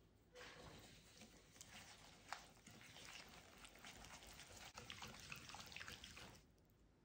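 Wire balloon whisk stirring melted butter and sugar in a glass bowl: quick scraping and light clinking of the wires against the glass and the sugar grains. It starts about half a second in and stops shortly before the end.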